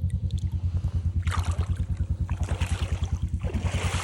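Engine idling with a fast, even pulse, under splashing water from wading and dragging through a creek. The splashes come about a second in, again past the middle, and near the end.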